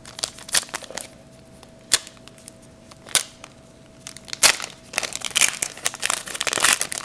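Trading card pack wrappers and cards being handled: irregular crinkling and rustling, sparse at first and busier in the second half.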